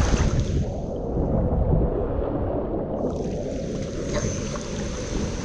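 Water-park din of rushing water and crowd noise, heavy in the low range. It goes muffled from about half a second in and clears suddenly about three seconds in.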